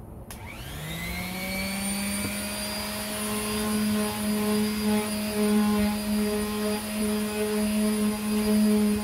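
Electric orbital palm sander switched on with a click, its motor whine rising in pitch as it spins up, then running steadily. It is louder once it is pressed against the wet plastic fuel tank, sanding with 400-grit paper.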